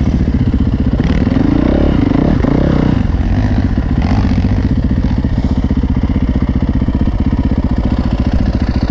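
Dirt bike engine running under the rider, its pitch rising and falling briefly between about one and three seconds in, then holding steady.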